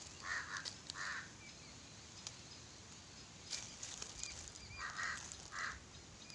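Two pairs of short, harsh animal calls, each call about a third of a second long, one pair near the start and another about five seconds in, over faint clicks and rustles in dry leaf litter.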